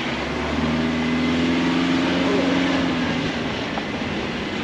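Subaru Crosstrek's flat-four engine pulling under load on a rough track, a steady drone that grows stronger about half a second in and eases off after about three seconds, over constant road and tyre noise.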